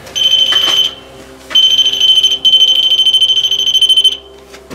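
REM pod ghost-hunting sensor sounding its alarm: a loud, shrill, rapidly pulsing electronic beep in three bursts, the last nearly two seconds long, set off as the device is set up.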